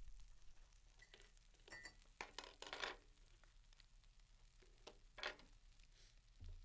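Faint scraping of a slotted spatula and a metal spoon across an electric griddle as an omelet is pushed and turned: a cluster of short scrapes about two to three seconds in and another about five seconds in.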